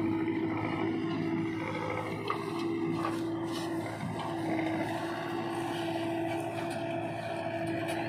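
Diesel engines of a JCB 3DX backhoe loader and a tractor running steadily while loading soil, a continuous drone with a held whining tone that breaks off briefly a few times.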